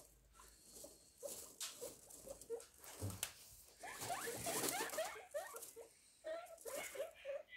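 Guinea pigs squeaking in many short, quick calls while rustling through dry straw bedding. The squeaks and rustling are densest around the middle.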